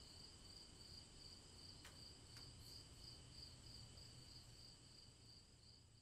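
Near silence: a faint steady electronic whine of several high tones over a low hum, with two faint clicks about half a second apart near two seconds in.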